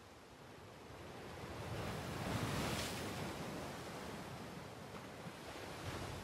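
Rushing water like a surging wave: a wash of noise that swells to a peak about two and a half seconds in, then eases to a steadier, softer wash.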